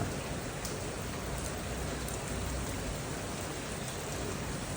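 Steady, fairly heavy rain falling.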